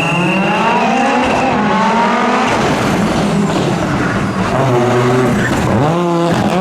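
Audi Quattro S1 rally car's engine revving hard under full throttle, its pitch climbing and falling as it shifts. A quick drop and rise near the end fits a lift or downshift. A steady high whine sits over the engine for the first second and a half.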